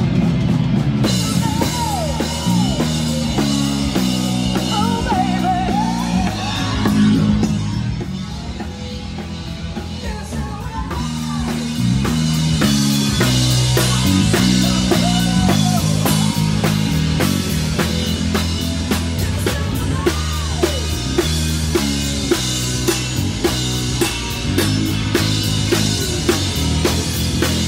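Rock music: a drum kit keeping a steady beat under guitar and a singing voice.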